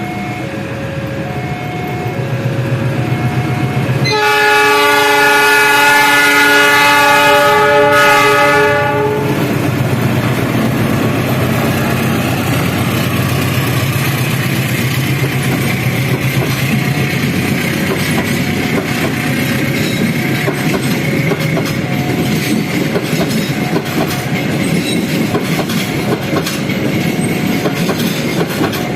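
Argo Cheribon passenger train's horn sounding one long blast of about five seconds, followed by the train running past with wheels clattering over the rail joints. A faint two-note alternating warning tone beeps before the horn and again under the passing train.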